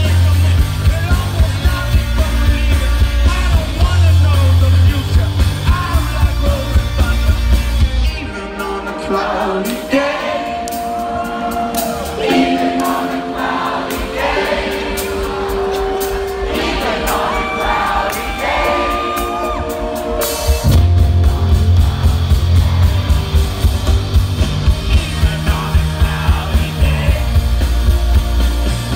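Live rock band playing, recorded from within the crowd: full band with heavy bass and drums, then about 8 seconds in the bass and drums drop out, leaving held notes and singing. The full band comes back in about 20 seconds in.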